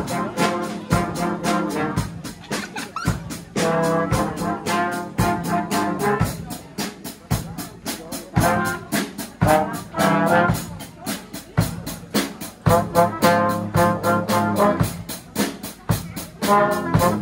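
School brass band playing a tune, with trumpets and trombones carrying the melody.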